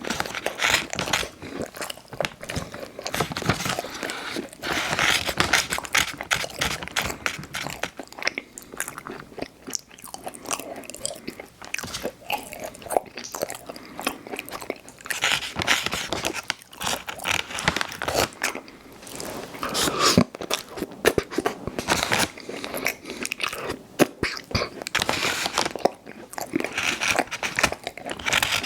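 Close-miked biting and chewing of Chips Ahoy! Chewy Hot Cocoa cookies: a dense run of small wet mouth clicks, with louder spells of bites every few seconds.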